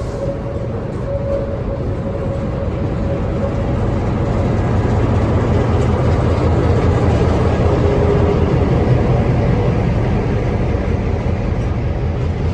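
EMD MP15AC diesel switcher locomotive passing, its 12-cylinder 645 engine and rolling wheels making a steady rumble that grows louder toward a peak about two-thirds through, then eases slightly.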